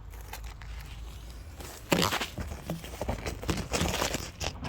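Irregular rustling and crinkling of handled material, starting about two seconds in.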